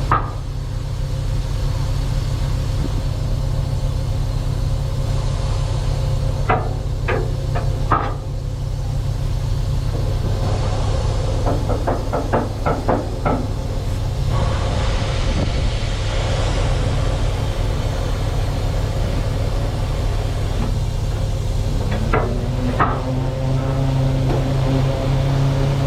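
Semi truck's diesel engine idling steadily, with a few sharp metallic clicks and knocks in two short clusters. Near the end the engine speed rises and holds higher.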